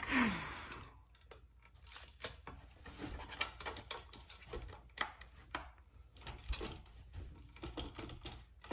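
Irregular light clicks and knocks of hand tools and parts being worked on a BMX bike during assembly.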